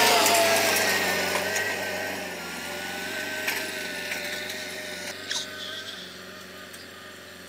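Tractor's diesel engine running under load as it pulls a disc harrow through stubble. It is loudest at the start, close by, and fades steadily as the tractor drives away.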